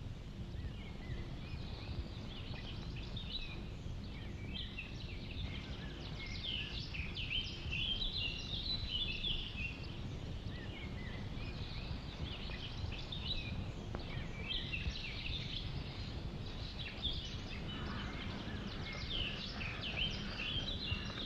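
Several birds chirping and singing in short phrases over a steady low rumble of background noise.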